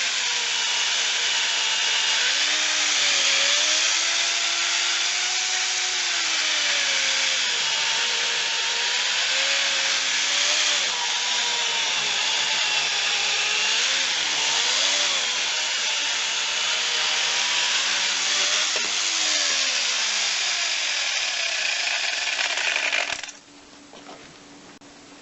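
Angle grinder converted into an electric chainsaw, running and sawing wood. Its motor pitch dips and recovers again and again as the chain bites; the chain is somewhat dull. It stops abruptly near the end.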